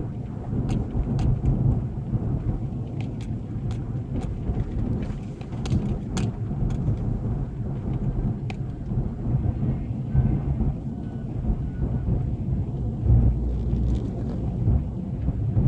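Car driving on a rough, worn road, heard from inside the cabin: a steady low rumble of tyres and engine, with scattered sharp clicks, most of them in the first half.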